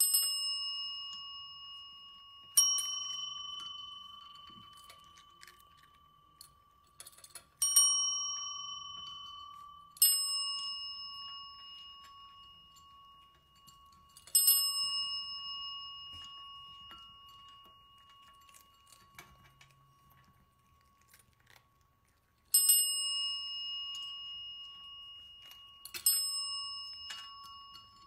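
Chrome desk service bells struck by a cat's paw, ringing about seven times at irregular intervals of a few seconds. Each ring is a bright ding that fades away slowly. The cats ring the bells to ask for a food treat.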